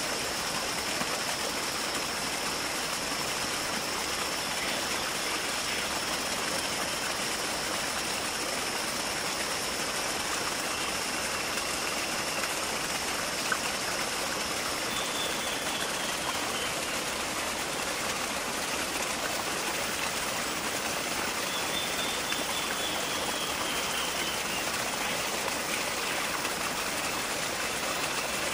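Steady rushing noise of running water. A thin high steady tone sounds over it and stops about halfway through, and two faint short whistles rise and fall later on.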